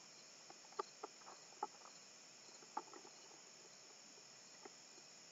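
Faint outdoor quiet with a steady high insect chirring, broken by a few short soft taps and flaps as two roosters spar, wings and bodies striking each other.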